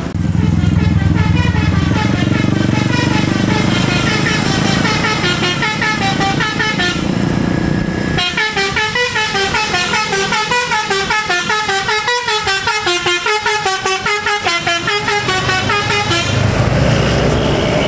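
A bus's telolet basuri multi-tone horn plays a fast melody of short, stepped notes over the bus's engine running. The engine drone is heavy in the first half and returns near the end, while the horn tune stands out most clearly in the middle.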